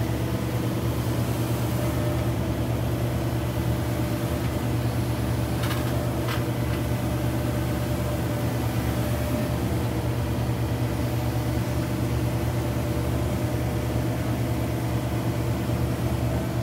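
John Deere excavator's diesel engine running steadily while its boom hydraulically lifts a heavy fish trap hung on chains. Two light clicks about six seconds in.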